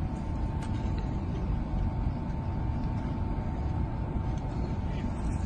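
A hoe blade scraping and pulling soil, heard as a few faint light scrapes, under a steady low rumble and a thin steady whine.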